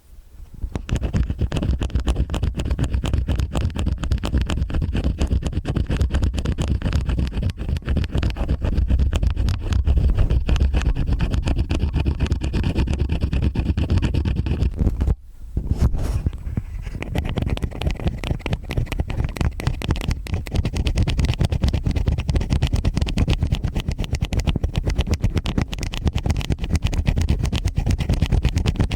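Stainless steel ear picks scraping and scratching in both ears at once: a dense, continuous crackle with a low rumble, broken by a short pause about halfway through.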